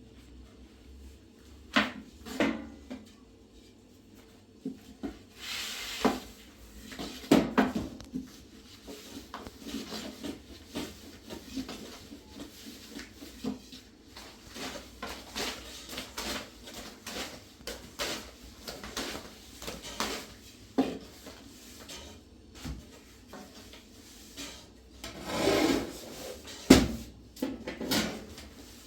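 Irregular knocks, clatters and rubbing of objects being handled, with a louder cluster of knocks near the end.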